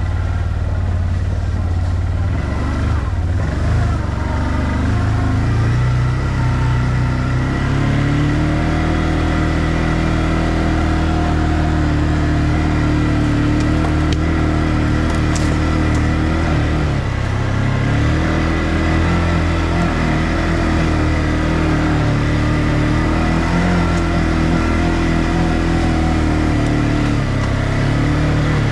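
ODES 650 ATV engine running under way on a rough forest dirt track, its note rising and falling with the throttle. A steady high whine sits above it throughout.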